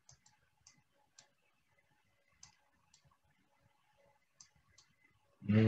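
Faint computer mouse clicks, about nine short, irregularly spaced clicks. A man's voice starts just before the end.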